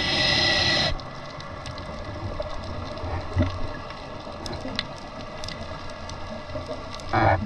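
Scuba diver breathing through a regulator underwater: a loud hiss of breath cuts off about a second in. Then comes a quieter stretch with faint scattered clicks, and a short gurgling burst of bubbles near the end.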